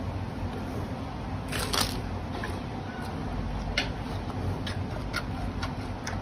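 Giant panda biting and crunching raw carrots: a loud crackly crunch about a second and a half in, then several single sharp crunches, over a steady low background rumble.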